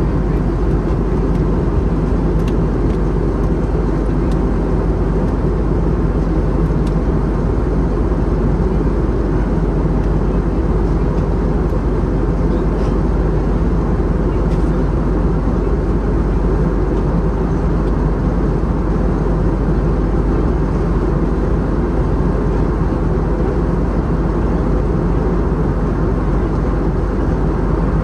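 Steady low rumble of an Airbus A321neo in cruise, its turbofan engines and the rush of air heard from a window seat inside the cabin.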